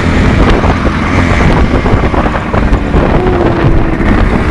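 Loud wind buffeting the microphone of a camera on a moving motorcycle, over the steady running of motorcycle engines at road speed.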